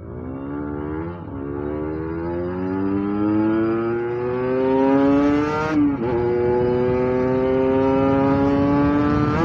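Kawasaki Ninja RR 150's two-stroke single-cylinder engine accelerating hard. Its pitch climbs in long sweeps and drops briefly as it shifts up, about a second in and again near six seconds, then holds high and nearly steady.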